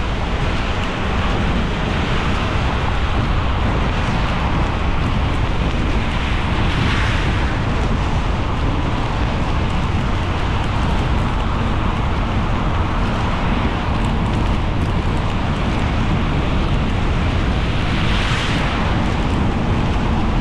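A car driving on a rain-soaked road, heard from inside the cabin: a steady hiss of tyres on wet pavement over a low road rumble. The hiss swells briefly twice, about seven seconds in and near the end.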